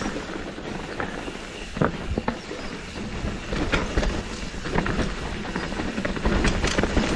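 Mountain bike descending a rocky downhill trail: tyres clattering over rocks, the chain and frame rattling, with many sharp knocks from hard hits.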